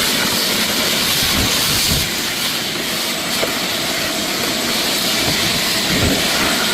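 Handheld abrasive power tool running steadily, grinding and sanding fibreglass: a loud, even, hissing rush with no change in speed.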